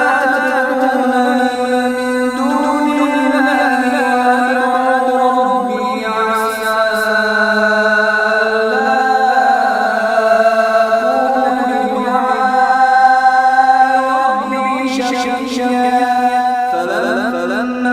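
A man's voice reciting the Quran in a melodic chant, holding long drawn-out notes that step up and down in pitch. Twice a brief high hiss sounds over it.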